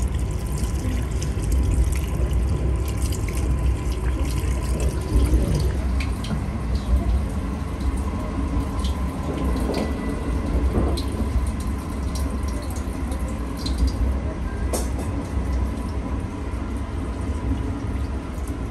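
Water running from a tap into a stainless-steel washbasin and splashing over hands being washed, over a steady low rumble.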